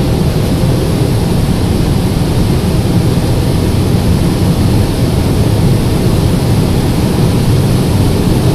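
Steady, loud rumble of tyre, wind and engine noise inside a car's cabin at highway speed, with no clear rise or fall in engine pitch.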